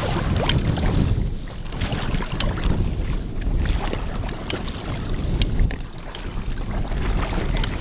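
Wind buffeting the microphone aboard a small boat under way, with water splashing against the hull in scattered sharp slaps.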